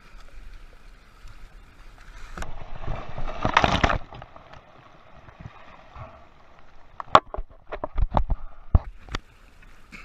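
Choppy sea water splashing against a sea kayak's hull as it is paddled. A louder rush of water comes about three seconds in, and a run of sharp splashes follows near the end.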